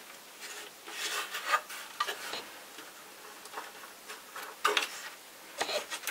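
Hard plastic parts of a Vorwerk VR100 robot vacuum's chassis being handled and taken apart: scattered clicks, knocks and rubbing in clusters about a second in, at about four and a half seconds and near the end.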